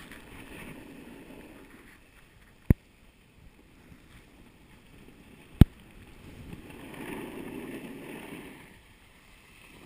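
Snowboard edges scraping and hissing over groomed snow while riding down a piste, swelling twice during turns. Two sharp knocks about three seconds apart are the loudest sounds.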